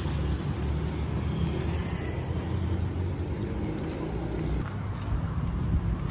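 Road traffic on a multi-lane city road: cars and a motorcycle passing, a steady low rumble of engines and tyres.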